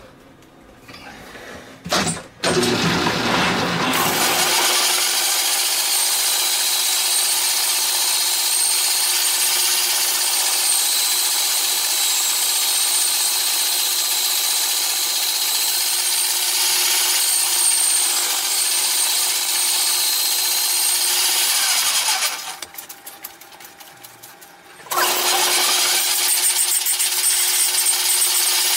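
Small belt-driven metal lathe turning down a cut-down VW Beetle brake drum, the cutting tool scraping steadily over the spinning rusty drum over a steady motor hum. It starts about two seconds in, stops for about three seconds near the end while the tool is reset, then resumes.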